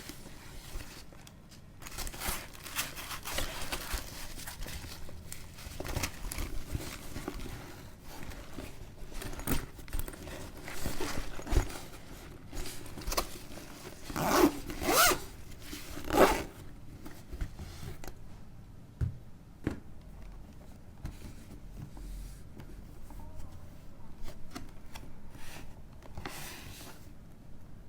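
Packaging of a camera box being handled and opened: cardboard and plastic rustling, scraping and tearing in irregular bursts, loudest about halfway through.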